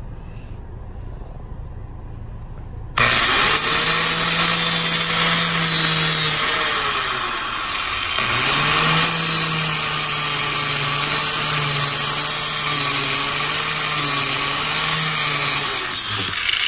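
Angle grinder fitted with a flap disc grinding down the metal automatic brake pedal, rounding its edges. It starts abruptly about three seconds in, its motor whine sags briefly midway under load and picks back up, then it cuts out near the end.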